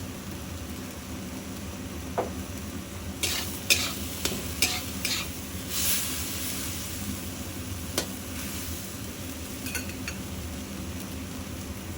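Spatula scraping and knocking against a pan while eggplant, tomato and pork are stir-fried, over a low steady sizzle. A quick run of scrapes comes about three to five seconds in, with a short hiss just after.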